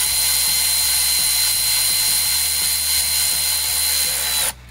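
Cordless electric ratchet running steadily with a high whine, driving an 8 mm hose clamp tight on the intake tube at the throttle body. It stops abruptly about four and a half seconds in.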